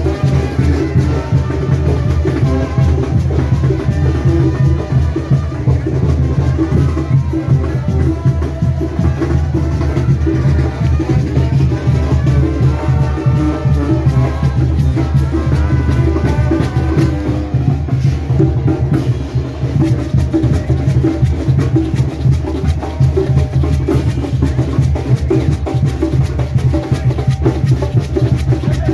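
A Mexican banda playing: brass horns over a tuba bass line and a steady drum beat.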